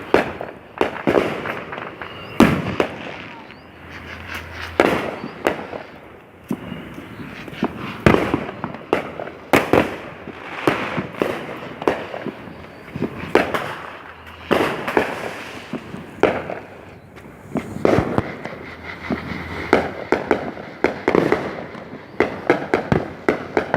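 Many fireworks going off in quick, irregular succession: sharp bangs and booms about a second apart, some overlapping, several trailing off in an echo.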